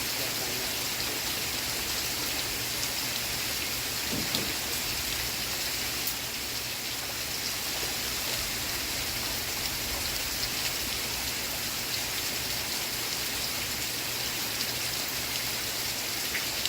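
Steady rain falling: an even, unbroken hiss with scattered faint drop ticks.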